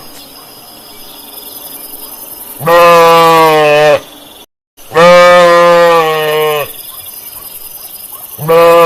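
Sheep bleating: three long, steady-pitched baas of about a second and a half each, the last starting near the end, with a moment of dead silence between the first two.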